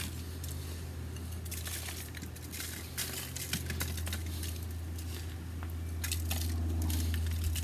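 Brown sugar sprinkled by hand onto foil-wrapped pork ribs on a grill grate: scattered faint crinkles and light taps on the aluminium foil, over a steady low hum.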